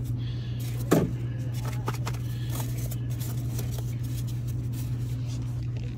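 Plastic worm containers being handled in a refrigerated bait cooler: a clunk about a second in and a few light clicks, over a steady low hum.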